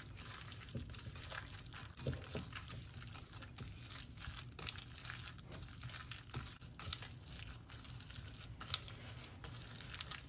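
Wet minced-pork filling, mixed with shiitake, scallion, seasonings, water and cornstarch, being stirred in a bowl: an irregular wet squelching with light clicks of the utensil against the bowl, and one sharper tick near the end.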